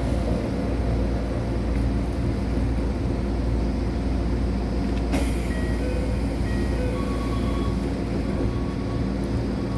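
Steady low hum inside a stationary Keikyu 1500 series electric train car, from its onboard equipment while it stands at the station. A sharp click comes about five seconds in, followed by a few short, faint high tones at different pitches.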